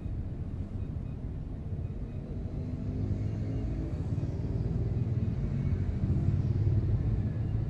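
Low, steady rumble of road traffic and idling engines at a crossroads. It grows louder from about three seconds in as vehicles move through, peaking near the end.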